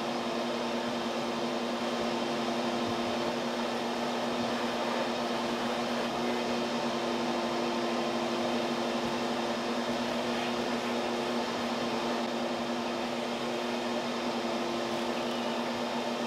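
Wasp-removal vacuum running steadily, its hose sucking adult yellowjackets off the wood inside a ceiling cavity: an even hum over the rush of air.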